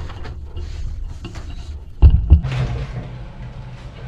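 Low rumbling and rattling of a building shaking in an earthquake, with a heavy thump about two seconds in.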